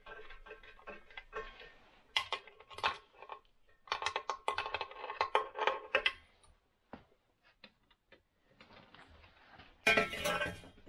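Socket ratchet clicking in quick runs as bolts are backed out of a vintage snowmobile engine. Near the end comes a loud metal clatter as the exhaust is worked loose.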